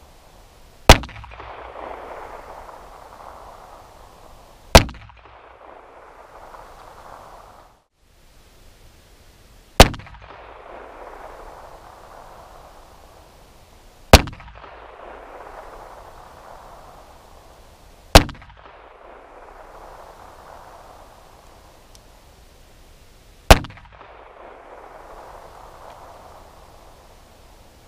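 Six single gunshots from a .380 ACP compact pistol, heard from near the target, fired slowly a few seconds apart in aimed fire; each sharp crack trails off in a long echo.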